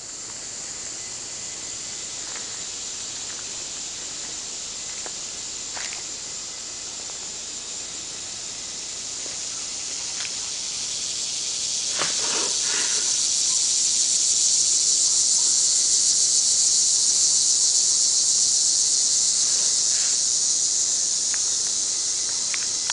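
Loud, steady high-pitched chorus of insects shrilling in the trees, swelling to its loudest a little past the middle and easing slightly near the end.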